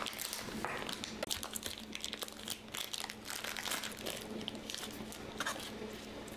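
Packaging being handled and crinkling, in a run of irregular crackles.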